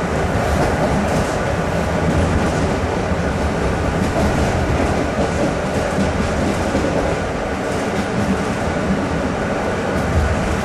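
Polish EN57-family electric multiple unit running at speed, heard from its cab: a steady rumble of wheels on the rails with some clickety-clack.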